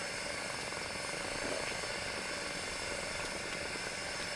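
Steady faint background hiss with no distinct sounds.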